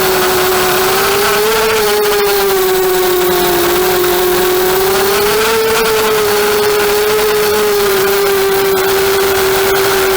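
Electric motors and propellers of a 250-size FPV racing quadcopter in flight, a steady buzzing whine whose pitch rises a little twice with throttle and settles back.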